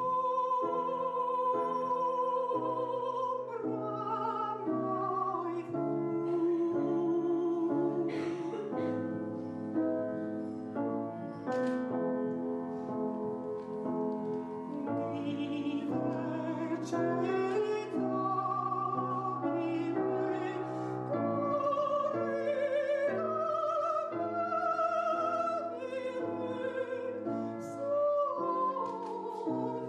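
Operatic singing with piano accompaniment. The singer holds long notes with a wide vibrato, opening with one long held note, over piano chords.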